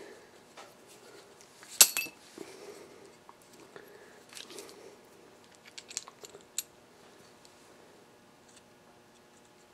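Small metal clicks and clinks as a Whitney No. 5 Junior hand sheet-metal punch and small punched pieces of sheet metal are handled, with one sharp click about two seconds in and lighter taps after it.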